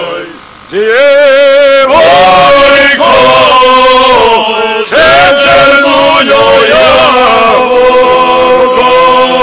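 Men's folk group singing groktalica, the unaccompanied Podgrmeč style of Bosnian Krajina singing. About a second in, one voice enters with a shaking, wavering tone, and a second later the whole group comes in on a held chord.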